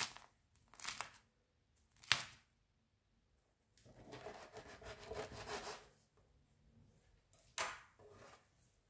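Crisp crust of a freshly baked loaf crackling as hands squeeze it, a few short crackles in the first couple of seconds. Then a knife saws through the crust and crumb for about two seconds, and there is one more sharp crackle near the end.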